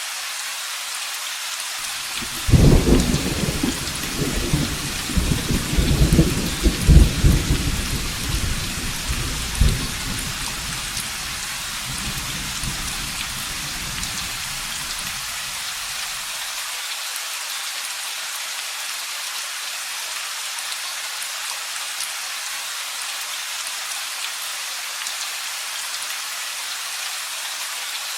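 Steady heavy rain hissing throughout, with a roll of thunder that starts about two and a half seconds in, rumbles loudly in several peaks, and fades out about halfway through.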